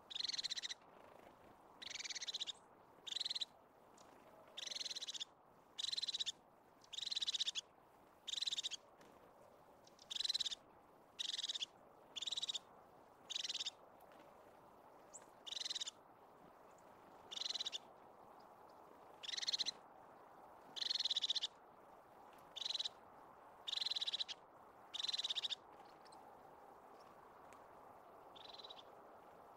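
Crested tit giving its purring, trilled call over and over: about twenty short trills, one every second or two, with a longer pause near the end.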